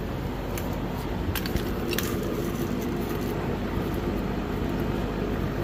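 Steady background hum with a few light clicks of handling about a second or two in.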